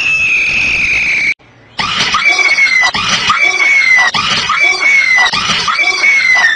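Shrill screaming in fright at a computer jumpscare. One long high scream is followed, after a short break, by a shrill scream that repeats about once a second, each one falling in pitch.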